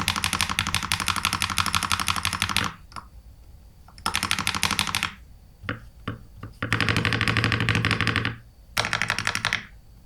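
Fast typing on a Keydous NJ80 75% mechanical keyboard with lubed KTT Tofu linear switches, a brass plate and cherry-profile PBT keycaps: runs of rapid keystrokes broken by short pauses. The switches' usually clacky, high-pitched sound comes through slightly muted on this board.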